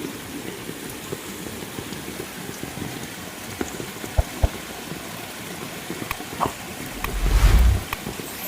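Steady heavy rain falling, with scattered louder drops striking a surface. About seven seconds in, a loud low whoosh swells and fades over about a second.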